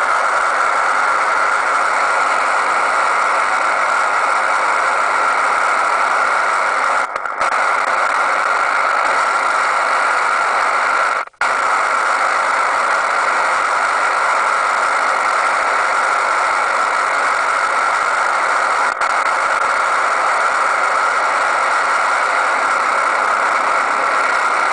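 Radio receiver putting out a loud, steady rushing noise from a 4G base station's 20 MHz OFDM signal. The noise drops out briefly about 7 seconds in, cuts out sharply for an instant about 11 seconds in, and flickers once more near 19 seconds.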